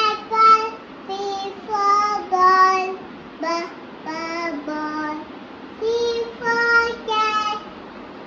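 A child's high voice chanting alphabet sounds and words in a sing-song, one short syllable after another.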